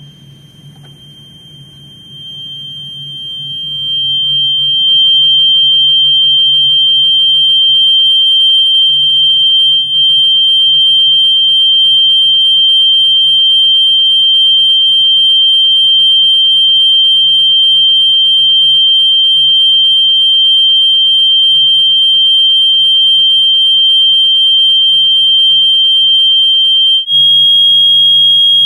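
A steady, high-pitched electronic test tone, a single pure pitch, that swells in over the first few seconds and then holds. Near the end it steps up slightly in pitch and gets louder. A faint low hum runs underneath.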